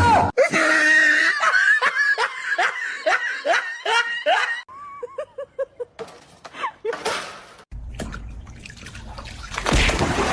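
Someone laughing in a quick run of short ha-ha sounds for about four seconds. Near the end comes a rush of splashing water.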